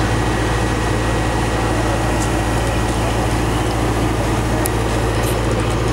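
CAT M315D wheeled excavator's diesel engine running steadily with a low, even drone.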